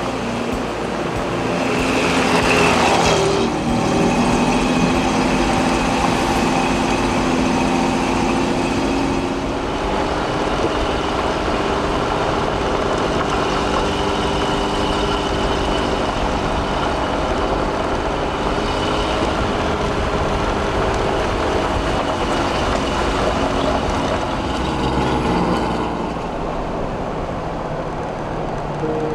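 Off-road camper truck driving on a gravel road, its engine running steadily over tyre noise.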